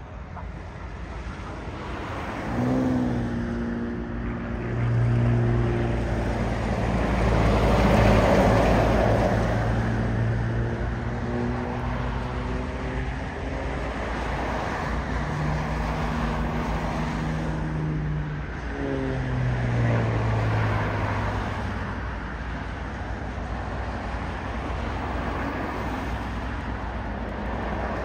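Single-engine aerobatic propeller plane's piston engine and propeller droning overhead during a smoke-trailing display, the pitch sweeping down twice, near the start and about two-thirds through, as the plane passes and manoeuvres; loudest about eight seconds in.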